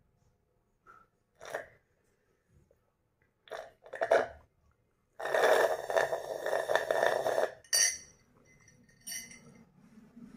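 Gulps from a glass mug, then one long, loud burp about five seconds in.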